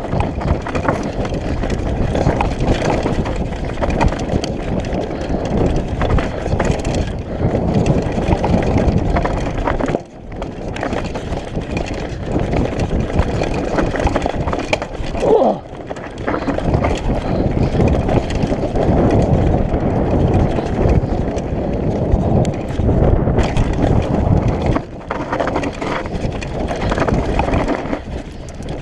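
Mountain bike descending a dirt trail: wind rushing over the camera microphone and tyres rumbling over the ground, with the noise dropping off briefly about ten seconds in.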